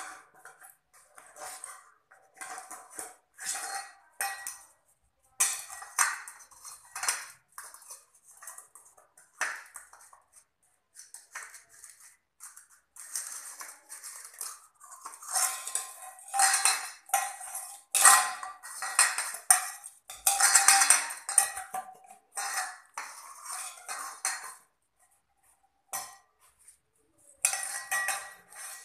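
A puppy at a metal food bowl, the bowl clattering and scraping on a tiled floor in irregular bursts, with a short metallic ring in many of them.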